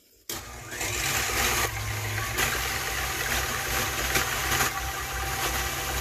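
KitchenAid stand mixer running, its wire whisk beating 35% whipping cream in the steel bowl. The motor starts a moment in, gets louder just under a second later as it picks up speed, then runs steadily.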